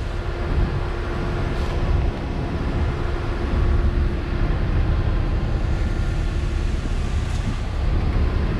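A vehicle engine idling, a steady low rumble with a faint hum over it that fades about seven seconds in.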